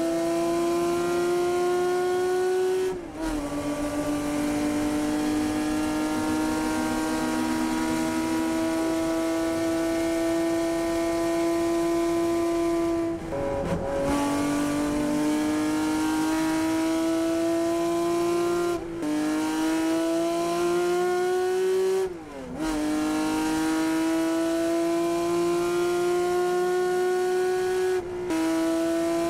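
Engine of a classic Ferrari racing car at full throttle, heard from inside the cockpit. Its note climbs slowly and drops sharply about five times, each time with a brief dip in loudness, then climbs again.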